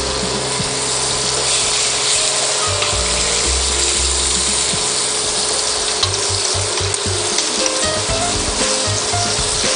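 Pork spare ribs searing in a hot pan with garlic and rosemary, a steady loud sizzle of fat and juices.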